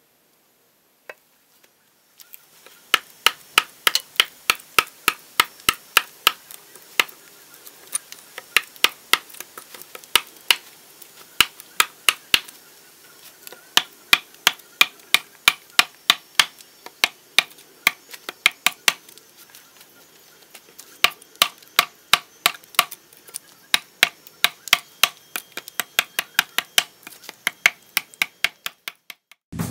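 Axe chopping into a birch blank to hollow out kuksa cups: a long run of sharp, rapid strikes, about two to three a second, with a couple of short pauses.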